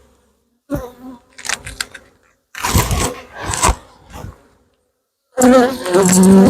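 Honey bees buzzing around an opened hive, close to the microphone. It comes in short bursts broken by dead silences, then about five seconds in turns into a loud, continuous buzz with a wavering pitch.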